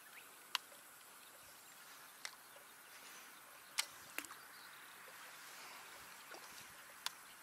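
Faint outdoor ambience over open water with a handful of short, sharp clicks at irregular intervals.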